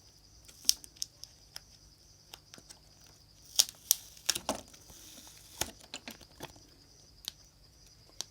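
Scattered small clicks and taps with some crinkling, from handling adhesive tape and phone parts by hand. The sharpest clicks come about a second in and in a cluster around the middle.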